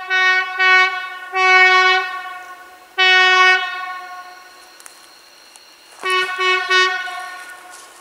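Diesel train horn sounding a series of blasts on one steady note: two short toots, two longer blasts, then three quick toots near the end, each trailing off in an echo.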